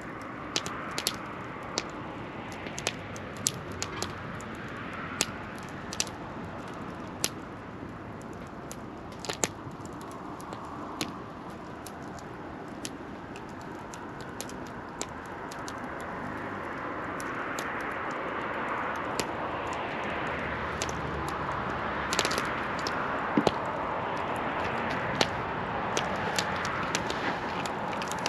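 Wood fire in a fire pit crackling, with sharp irregular pops and snaps throughout. A steady rushing hiss underneath grows louder about halfway through.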